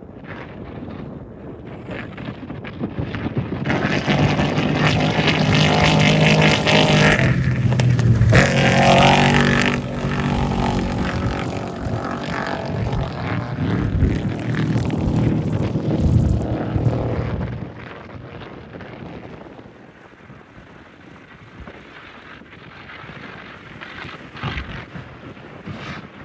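Off-road race vehicle passing at speed: its engine grows louder, runs loud for over ten seconds, then fades away.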